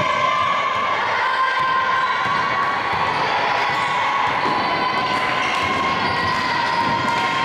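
A basketball being dribbled on a wooden gym floor, against the shouting and cheering of young voices in a large hall. A steady high-pitched tone sounds through it all.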